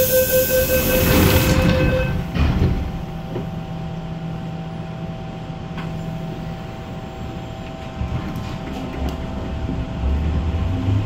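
MTR M-Train electric metro train heard from inside the car: a loud hiss with a steady tone for the first two seconds, then the steady hum of the train running, growing louder near the end.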